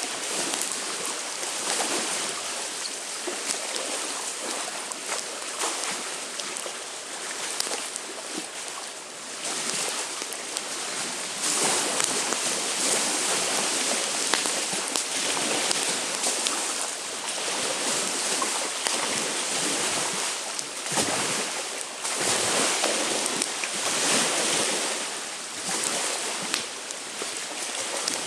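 Wind gusting and lake waves washing on the shore, swelling and easing every few seconds, with a campfire crackling in scattered small pops.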